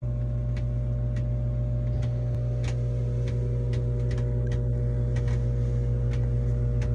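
Steady machine hum with a strong low drone, heard from inside a soft-sided portable hyperbaric chamber as its air compressor pumps it up, with scattered light clicks over the top.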